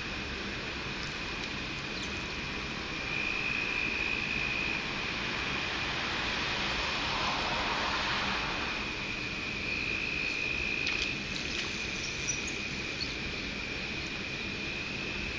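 A continuous high, even insect trill over a steady background rush of water from the dam outlet. A vehicle passes on the road about halfway through.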